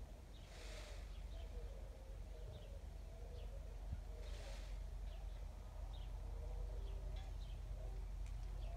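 Peacock shivering its raised train in courtship display, giving two short feather rustles, each about half a second long, one about a second in and one about four seconds in. Small birds chirp faintly in the background.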